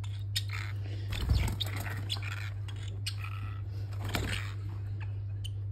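Paper towel rustling and crinkling in short bursts as a parrotlet tugs it off a kitchen roll, over a steady low hum.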